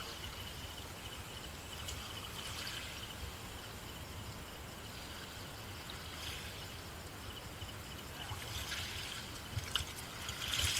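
Shallow seawater lapping and trickling, a soft steady watery noise, with a faint steady high tone and a few light clicks near the end.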